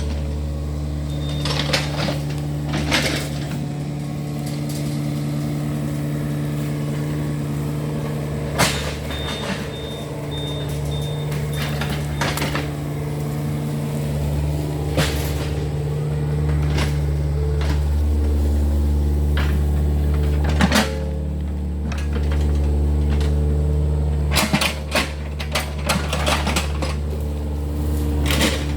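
Yanmar excavator's diesel engine running steadily, its note shifting a few times as the hydraulics take load, with repeated sharp metallic clanks and knocks from the working machine.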